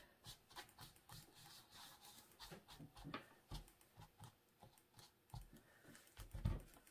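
Faint, irregular soft taps and rubbing of a crumpled paper towel dabbed on a painted canvas, with one louder thump about six and a half seconds in.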